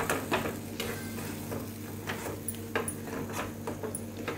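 Spatula scraping and knocking against an iron kadai while stirring thick, cooking besan pithla, in irregular strokes about two a second.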